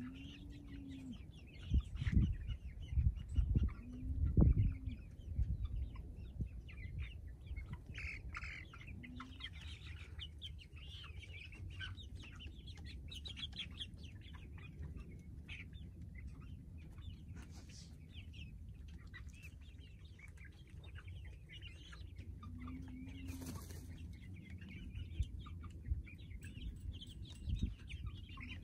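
A flock of young hens clucking and chirping as they feed at PVC-pipe feeders, with a few low thumps about two to five seconds in.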